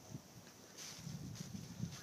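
Faint footsteps crunching through dry fallen leaves, a few soft irregular steps and rustles.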